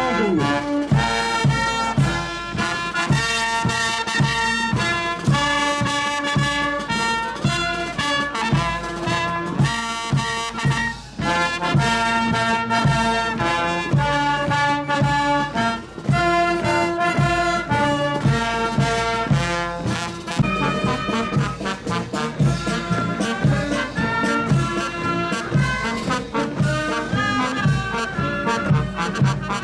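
Brass band playing a march, with a melody over a steady drum beat.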